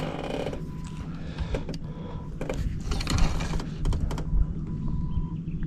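Clicks and light knocks of a baitcasting rod and reel being handled in an aluminium boat, over a steady low hum.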